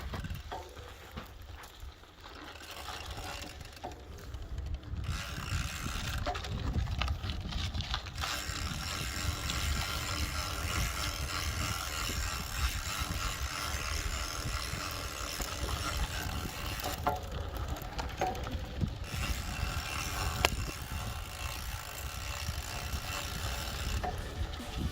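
Mountain bike ridden with its rear freehub ratchet clicking rapidly and evenly, over a steady low rumble of tyres and wind. The clicking is strongest through the middle of the stretch.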